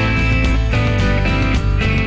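Background music featuring guitar, with sustained notes changing every half second or so.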